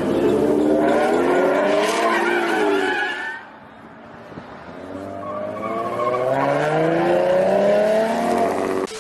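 A car drifting: its engine revving high while the tyres screech. The sound fades about three seconds in, then builds again with a steadily rising engine note and stops suddenly near the end.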